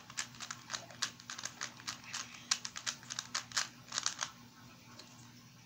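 Plastic Rubik's Cube layers being twisted quickly by hand: a rapid, irregular run of sharp clicks that stops a little past four seconds in as the cube is solved.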